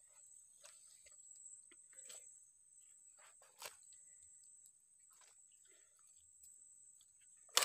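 Faint crackling and rustling of dry twigs and leaves on mangrove mud, with a steady high insect drone throughout; one sharper click at the very end.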